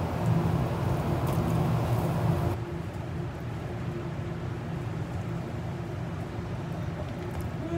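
Steady low machine hum with a faint steady tone over it, typical of kitchen equipment running. Its loudest low part drops away about two and a half seconds in, and a quieter hum carries on.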